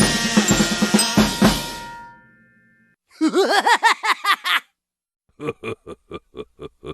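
Cartoon sound effects one after another: a drum-kit beat with snare and cymbal fades out, then a quick run of bouncy warbling boings rising and falling in pitch, then, near the end, a string of short squeaky cartoon noises at about three a second.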